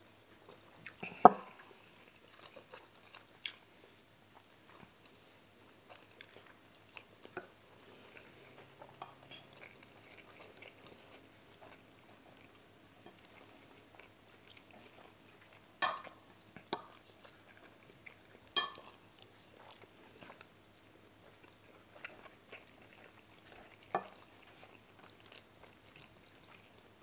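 Chewing and eating sounds with wooden spoons scraping on a plate, broken by a handful of sharp clacks of spoon or glass on plate and table, the loudest about a second in.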